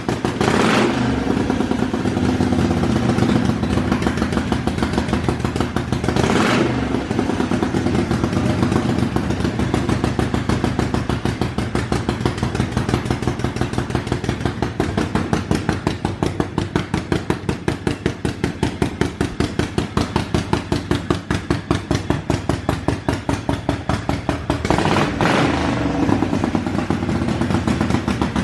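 1980 Harley-Davidson Shovelhead's 80-inch V-twin running at a fast idle with its even, loud firing beat, blipped up three times: just after the start, about six seconds in, and a few seconds before the end. It is running on a newly fitted electronic ignition that replaced a broken magneto.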